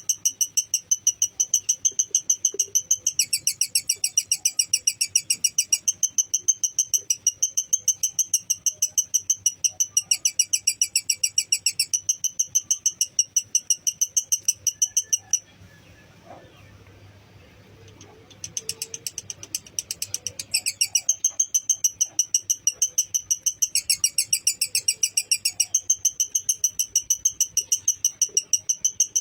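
Lovebird singing its long 'ngekek' chatter: a fast, even run of high, clipped chirps, several a second, with the note pattern changing in a few stretches. It breaks off for about three seconds roughly halfway through, then picks up again.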